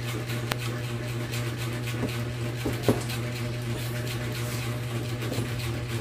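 A few light metal clicks and taps from idle air control valve parts being fitted back onto a Honda CR-V throttle body by hand, the sharpest about three seconds in, over a steady low hum.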